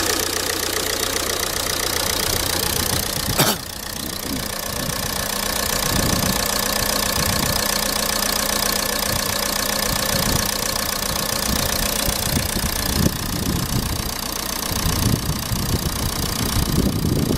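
Ford TDCi diesel engine idling steadily, with a sharp click about three and a half seconds in. This is an engine its owner complains of for rough running and shaking.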